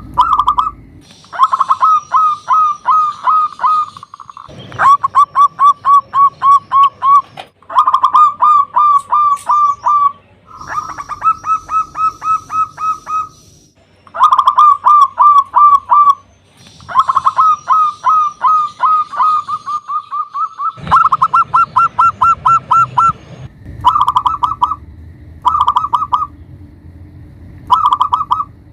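Zebra dove (perkutut) singing: runs of rapid, staccato cooing notes, each run lasting one to three seconds with short pauses between, and shorter bursts toward the end.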